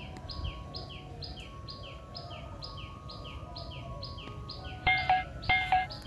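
Birds chirping over soft background music: a high, downward-sliding chirp repeats evenly about twice a second, and two louder calls come close together near the end.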